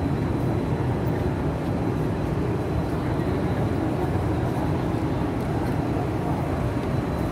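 Steady low rumbling background noise in a large hall, with faint indistinct voices and no distinct events.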